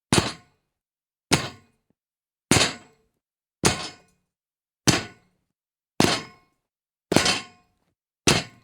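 Foley of someone jumping onto a metal gate: eight separate clanging impacts, about one a second, each ringing briefly and dying away before the next.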